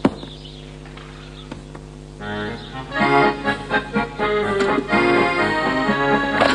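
Background music: held notes at first, then a quick, busier tune starting about two seconds in. A sharp knock at the very start.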